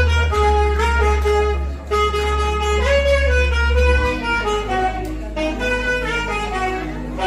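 Saxophone playing a pop melody in held, gliding notes over a backing track with a deep bass line.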